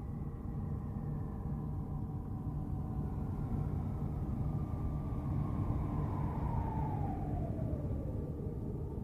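Ambient space-sound drone: a steady low rumble under several faint held tones that drift slowly in pitch, one sliding down from a high to a middle pitch over the last few seconds.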